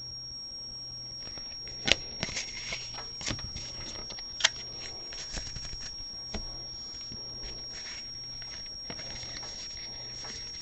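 Baseball trading cards being flipped and slid against each other in a stack, with scattered sharp clicks and taps. A faint steady hum and a high whine run underneath.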